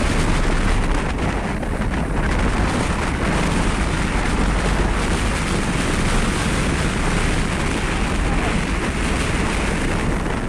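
Wind buffeting the microphone, a steady loud rush, with water splashing around an inflatable boat in the shallows.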